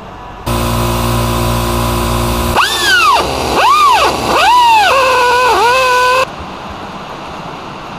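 Hand-held corded power drill motor running steadily, then its pitch rising and falling three times as the speed changes, cutting off suddenly about six seconds in.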